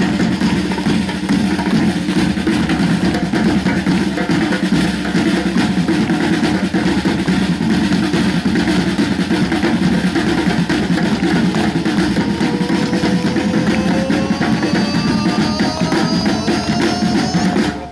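Loud drum-heavy music with a fast, dense beat. Over the last several seconds a rising tone climbs in pitch, and the music cuts off suddenly at the very end.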